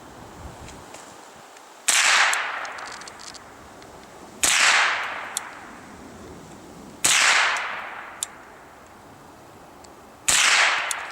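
Four single shots from a Walther-made HK G36 .22 LR semi-automatic rifle, fired slowly about two and a half to three seconds apart. Each is a sharp crack with an echo trailing off for about a second.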